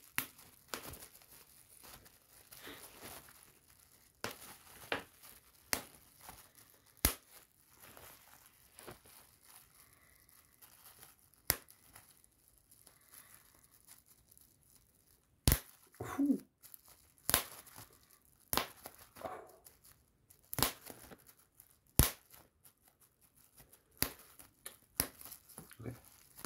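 Bubble wrap being popped by hand: sharp single pops at irregular intervals, sometimes two or three close together, with plastic crinkling between them.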